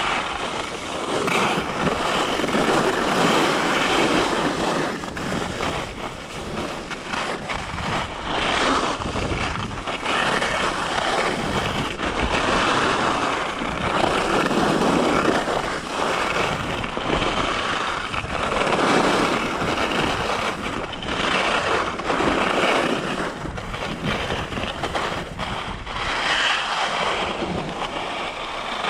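Skis carving and scraping across groomed snow, a hissing rush that swells and fades with each turn every few seconds, mixed with wind buffeting the chest-mounted camera's microphone.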